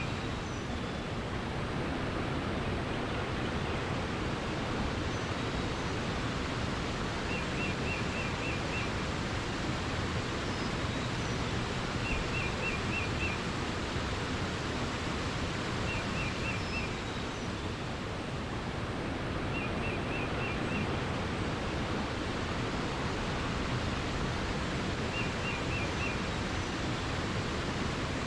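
Steady rush of running water, with a songbird singing a short trill of about five quick notes five times, roughly every four seconds.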